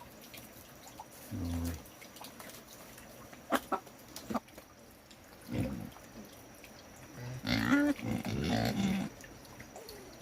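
Pigs grunting: a short low grunt early on, a few sharp knocks, then a louder, longer pitched call near the end.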